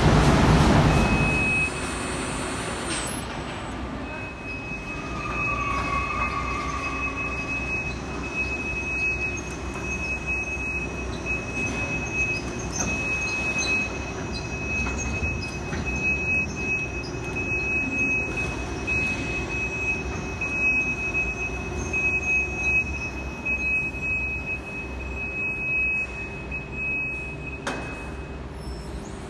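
Machinery of a corrugated-board palletizing line running: a loud low rumble for the first second or so, then a steady mechanical hum. A continuous high-pitched tone runs over the hum and cuts off near the end.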